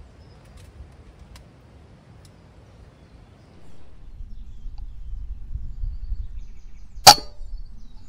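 A single shot from a silenced .177 FX Dreamline pre-charged pneumatic air rifle: one sharp crack about seven seconds in, over a low rumble that starts about halfway through.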